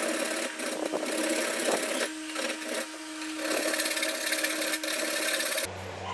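Hand file rasping in quick back-and-forth strokes across the edge of a steel katana blade clamped in a vise. The filing stops abruptly near the end, leaving a low steady hum.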